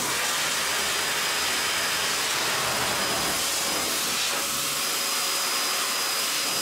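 Pet grooming dryer blowing air on a dog's coat: a steady rush of air with a thin high whine from the motor.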